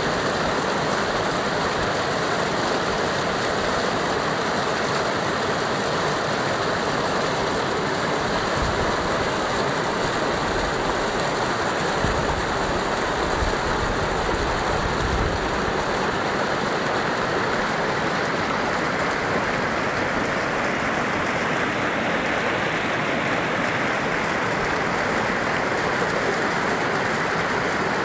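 Muddy flash-flood water rushing through a desert wadi, churning over rocks and small rapids in a steady, loud, unbroken rush.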